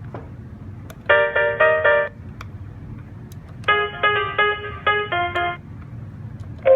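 Cisco IP Phone 7911G ringtone playing through the phone's small speaker: short electronic melodies of several quick notes, one phrase about a second in and a longer one around four seconds in, with pauses between them.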